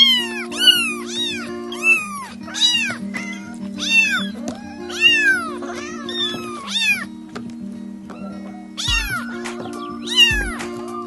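Kittens meowing loudly, a dozen or so short high-pitched meows that each rise and fall, about one a second with a brief lull late on. Background music with held chords plays underneath.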